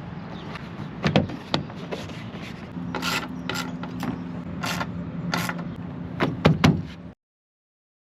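Mechanical clicks and knocks from work on a taillight assembly: several sharp, spaced-out clicks over a low steady hum, then a quick run of dull knocks near the end.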